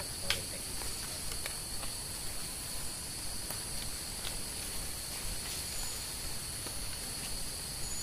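Steady high-pitched drone of tropical rainforest insects, holding at two pitches throughout, with scattered sharp clicks and snaps; the loudest is a click about a third of a second in.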